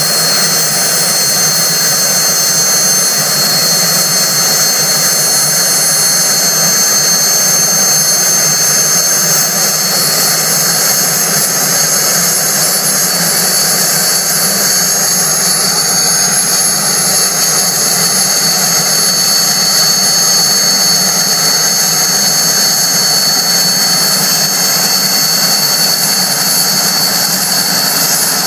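Aérospatiale SA 315B Lama helicopter's Turbomeca Artouste turboshaft running steadily, a loud turbine whine with several high tones held at constant pitch over a rushing noise.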